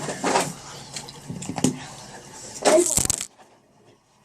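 Small items being handled and put away, with scattered light clicks and knocks and a brief voice sound about three seconds in; the sound then drops almost to silence.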